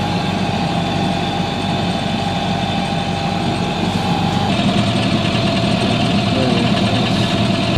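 Sailboat's engine running steadily while motoring, with a steady whine over it that steps slightly lower in pitch about four and a half seconds in.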